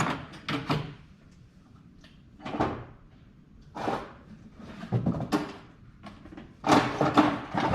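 Metal hand tools clattering and clinking in five or six short separate bursts, as a socket, adapter and ratchet are fitted and handled on the bolts.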